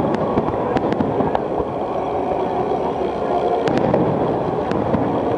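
Fireworks going off: a string of sharp cracks and pops, several close together in the first second and a half and a few more later, over a continuous low din.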